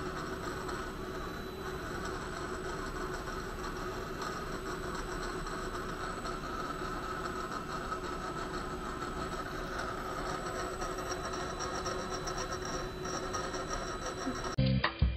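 ABB 3HAC17484-9 robot servo motor being run on test from the robot's teach pendant: a steady electric hum and whine with a few fixed tones, with faint rapid ticking in the second half. It runs normally after repair, its oil-stuck brake freed. Music begins in the last half second.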